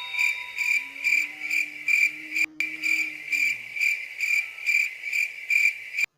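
Cricket chirping in a steady pulsed rhythm, about two to three chirps a second, cutting off abruptly near the end. This is the stock crickets sound effect used for an awkward silence.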